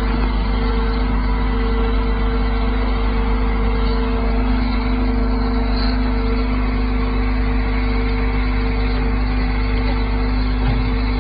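A heavy vehicle's engine running steadily, a constant low drone with a steady hum.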